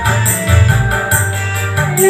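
Instrumental passage of a karaoke backing track: a steady beat with regular low drum thuds and high jingling strikes under sustained melody tones, with no voice.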